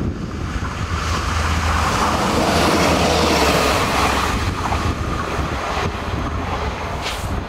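SNCF X 73500 single-car diesel railcar passing close by and running away, its engine and wheel noise swelling to a peak a few seconds in and then fading. Strong wind buffets the microphone throughout with a low rumble.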